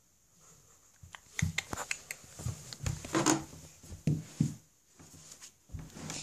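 Plastic Schleich toy horse figures being handled and moved about: irregular taps, clicks and knocks with short rustles, starting about a second in.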